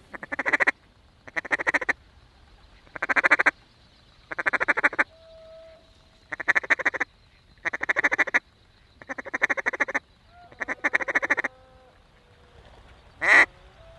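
Mallard-style duck chatter: eight bursts of rapid quacking about every second and a half, then one short, loud quack near the end.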